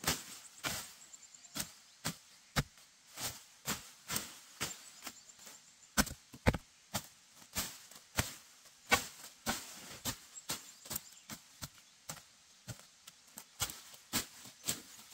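Machete chopping through ferns and brushy undergrowth: a series of sharp, unevenly spaced strokes, about two a second.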